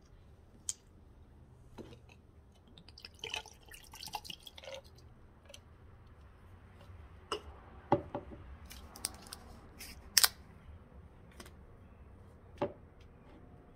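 Scattered clicks, clinks and knocks of bottles being handled against a glass mason jar of ice, as a small bottle of banana schnapps is opened and poured over the ice; the sharpest clinks come about 8 and 10 seconds in.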